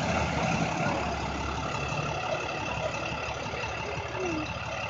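A 2005 IC CE300 school bus's DT466 diesel engine running at a steady idle, easing off slightly after the first couple of seconds.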